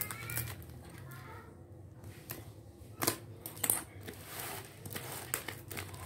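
Packing tape and plastic wrap being picked and pulled off a small cardboard parcel by hand: scratchy crinkling and rasping, with a few sharper crackles about three seconds in and near the end.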